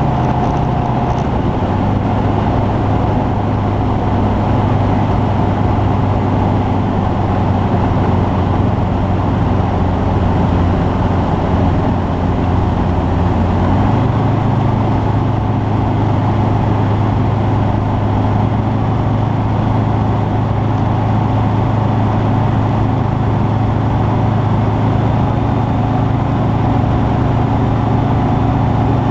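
Rotax 912S flat-four engine of a Skyranger Classic microlight running steadily, its note shifting slightly about halfway through as the power setting changes.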